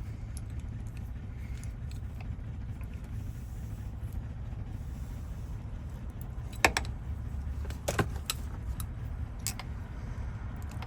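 A few sharp metallic clicks and taps in the second half, from small tools working on the parts of a Chevy Silverado door lock cylinder as its tumblers are being removed, over a steady low hum.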